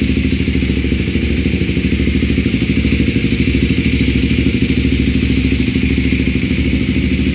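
Kawasaki Ninja 250RR Mono's single-cylinder engine idling steadily through a Yoshimura R-77D slip-on exhaust, an even pulsing with no revs.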